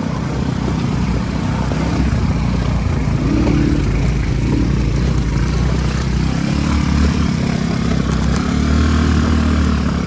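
ATV engine running under way, its pitch rising and falling with the throttle, with wind and rumble on the microphone.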